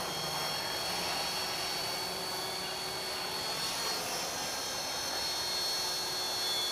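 Small electric RC helicopter (T-Rex 450 class) in flight: a steady high whine from the electric motor and gears over the hiss of the spinning rotor blades.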